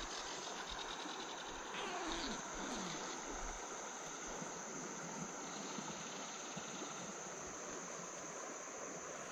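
Flowing river water with a steady high drone of insects over it.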